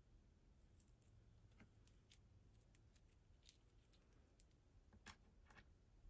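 Faint, scattered small clicks and ticks of a plastic bead necklace and heart pendant handled between fingers and fingernails, with a couple of slightly louder clicks near the end, over near-silent room tone.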